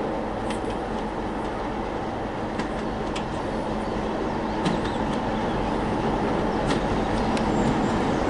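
Diesel locomotive hauling a train, its engine running with a steady low hum that grows slowly louder as it approaches.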